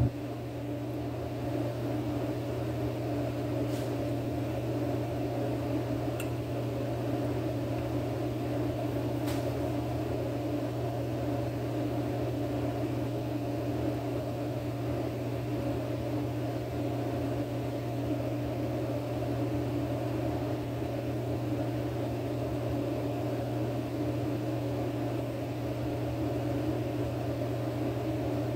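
A fan running with a steady low hum, unchanging throughout, with three faint clicks in the first ten seconds.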